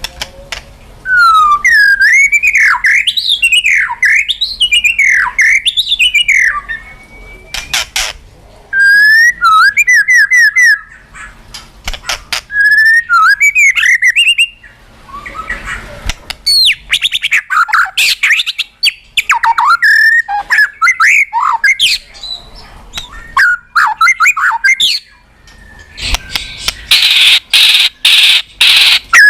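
White-rumped shama (murai batu) singing loudly: varied phrases of gliding whistles and quick repeated notes, separated by short pauses, with a harsh, rasping stretch near the end.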